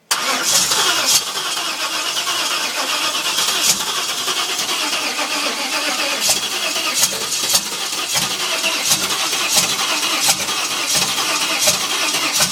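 GM LT1 V8 turning over on the starter motor in a steady, even rhythm, cranking hard but never catching: a crank-no-start, with the gas pedal left untouched.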